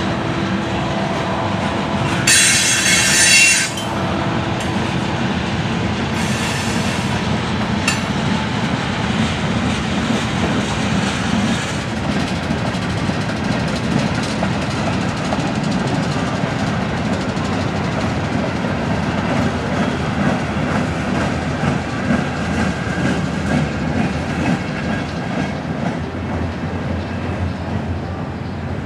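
Freight train of tank cars rolling past: a steady rumble and clatter of wheels on rail. A loud, high metal squeal comes about two seconds in and lasts over a second, with a fainter squeal around six seconds.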